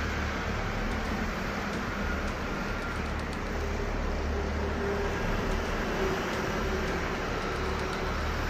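Steady road traffic noise: a low rumble of cars, motorbikes and buses passing on a multi-lane road.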